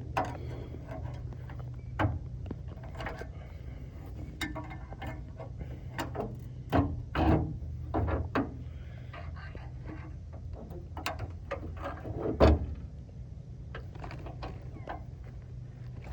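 Irregular metal clicks, knocks and scrapes from the spare tire hanger and its catch under a 1993 Ford F-150 as they are worked loose by hand, the part still stuck on its lip. A low steady hum runs underneath.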